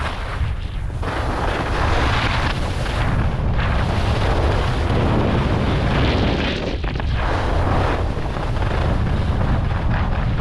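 Wind buffeting an action camera's microphone in a low, steady rumble during a fast ski descent. Over it, the hiss and scrape of skis on packed snow swells and fades with the turns.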